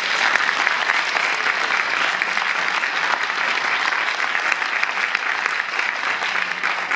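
A large audience applauding, loud and steady.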